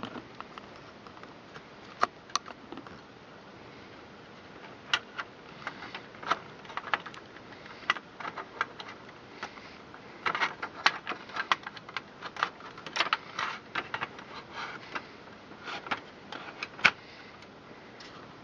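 Small computer-case hardware being handled during a drive installation: irregular light clicks, taps and small metallic rattles. They are sparse at first and come thick and fast from about halfway in.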